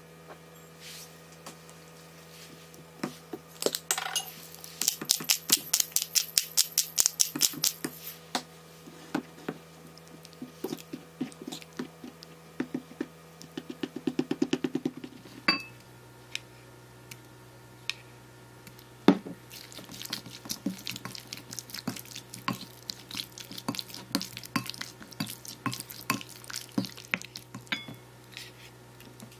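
Wooden spoon stirring a thick chili seasoning sauce in a small ceramic bowl, with quick clicks and scrapes against the bowl's side that come fastest and loudest in the first third. After a break about halfway, slower, scattered scrapes and taps of the spoon as the sauce is spooned out of the bowl.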